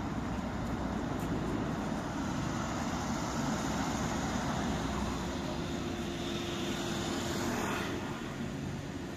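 Volvo 7900 Hybrid city bus pulling away from a stop and moving past close by, a steady drive hum over road noise. A low steady tone comes in past the midpoint, and the sound eases off near the end as the bus moves away.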